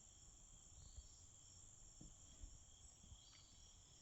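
Near silence: faint, steady high-pitched insect chirring over a low rumble of outdoor background noise.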